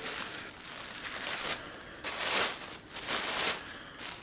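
Clear plastic bag crinkling as it is pulled off and bunched in the hand, in several uneven spells of rustling.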